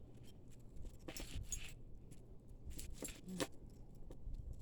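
Costume jewelry being handled and pulled apart, with several short clinks and rustles of metal pieces and cord.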